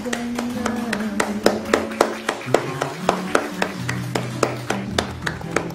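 Hand clapping at an even pace, about four claps a second, over background music with sustained low notes.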